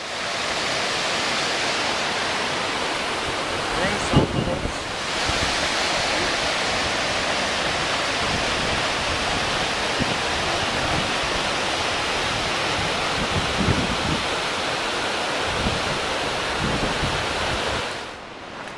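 Creek whitewater rushing over boulders, a steady loud rush. A few low thumps of wind or handling on the microphone come through it, the strongest about four seconds in. The rush falls away sharply just before the end.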